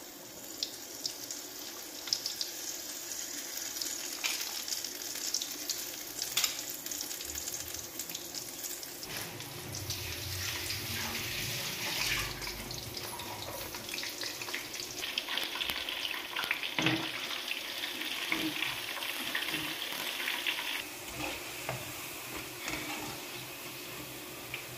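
Besan (gram-flour) pakoras deep-frying in medium-hot oil: a steady sizzle with scattered crackles and a few light knocks.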